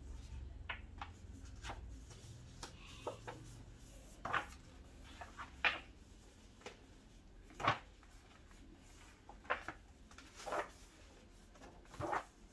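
Paper pages of a large bound logbook being turned by hand: a series of short, irregular page flaps and rustles, a few of them louder.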